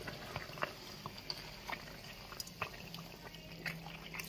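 Faint wet scraping, small splashes and clicks of a hand digging through soaked soil and grit in a hole under floor tiles, where water is seeping up from a leaking buried water pipe, over a faint low hum.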